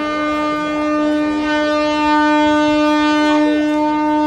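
Indian Railways locomotive horn sounding one long, steady blast at a single pitch.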